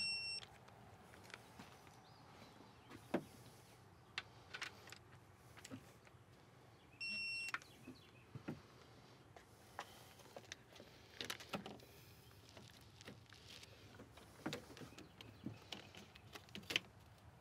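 A digital torque wrench beeping twice, short steady high beeps about seven seconds apart, signalling that the 25 N·m set torque has been reached on intake manifold bolts. Between the beeps come scattered light clicks and knocks of tools on the engine.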